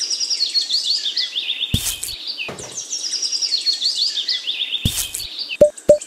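Songbird singing: a phrase of quick chirps stepping down in pitch, sung twice about three seconds apart, with two brief knocks in between. Near the end a fast, even ticking begins.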